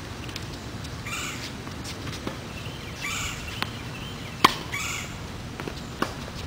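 Tennis racket striking a ball with a sharp pop about four and a half seconds in, the loudest sound, with a few lighter knocks of ball hits and bounces around it. A bird calls three times in the background.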